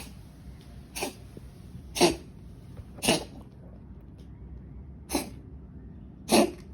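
A cat giving a series of short, sharp coughs, about one a second, with a longer pause before the last two; the owner wonders whether it is coughing up hairballs.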